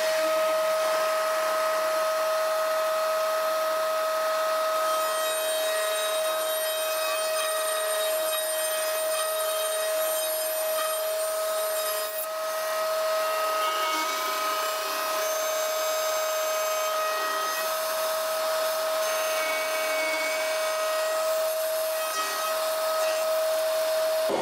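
Table-mounted router running steadily with a high, even whine while its straight bit routes a handle slot through a walnut tray side, with the rushing noise of the dust extractor drawing through the fence.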